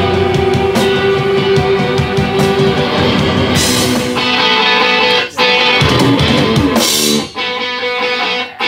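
Live rock band playing loud: electric guitar with a drum kit. About seven seconds in the drums drop out, leaving the guitar ringing on its own.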